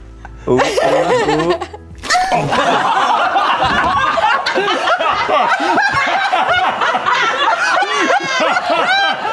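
Men laughing together in sustained, overlapping fits, starting about two seconds in and going on without a break.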